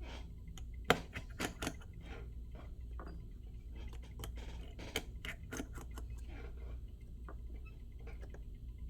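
Irregular small clicks and taps of hand tools working on an iPhone 7 Plus, the sharpest about a second in, over a steady low hum.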